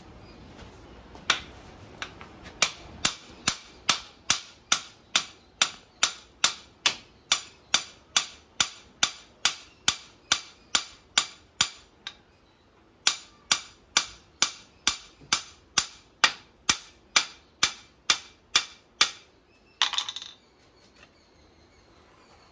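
Hammer striking the top of a metal earth-ground rod, driving it into wet soil: sharp blows at about three a second, a short pause about halfway, then more blows. A brief scraping clatter follows near the end.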